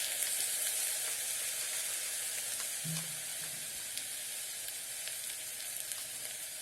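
Pasta and vegetables with dark soy sauce sizzling on the hot base of an electric kettle: a steady hiss.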